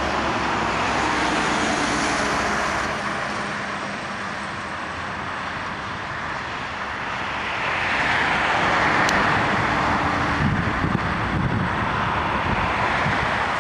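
Jet airliner flying past: a steady rush of engine noise that swells about eight seconds in and stays loud toward the end.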